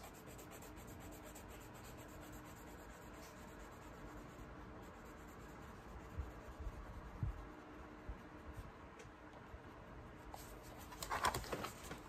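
Prismacolor Col-Erase colored pencil shading a gradient on sketchbook paper, faint and steady. Near the end come a few louder knocks and handling noises as the sketchbook is lifted.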